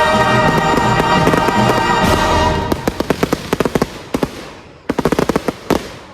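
Fireworks going off over a music soundtrack. About halfway in, two quick runs of sharp crackling reports come as the music fades out.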